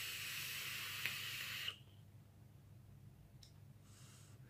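E-cigarette atomizer hissing during a draw, its 0.27-ohm coil fired at about 38 watts; it stops a little under two seconds in. A fainter hiss of vapour being exhaled follows near the end.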